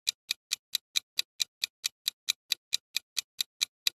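Countdown timer sound effect ticking like a clock, with evenly spaced sharp ticks about four and a half a second.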